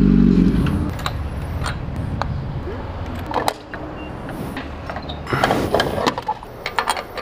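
2007 Yamaha R1's inline-four engine running steadily, then switched off about a second in. After that come scattered mechanical clicks and knocks.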